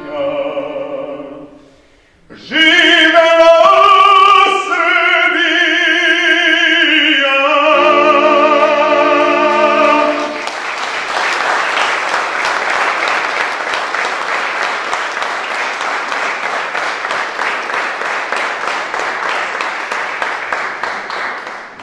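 Tenor singing a final long held note with wide vibrato, accompanied by a Guerrini button accordion that closes on a held chord about ten seconds in. Audience applause follows and runs on for about ten seconds, fading near the end.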